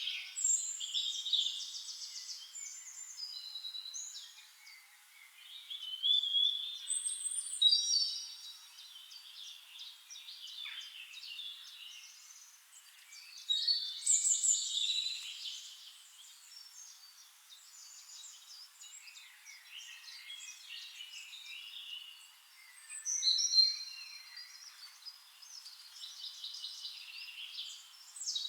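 Several songbirds chirping and singing in a forest, overlapping quick high twitters and whistled phrases that come in louder bursts about 6, 8, 14 and 23 seconds in. There is no low sound at all beneath the birdsong.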